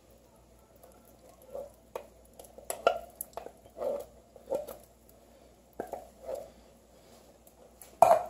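Small wooden spoon scraping thick chili beans out of a tin can, with soft wet plops of beans into the pot and light knocks of the spoon on the can, at irregular intervals. A sharper, louder knock comes near the end.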